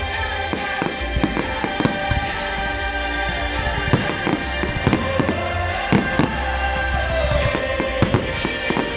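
Aerial firework shells bursting, a rapid, irregular string of bangs and crackles, over music playing loudly.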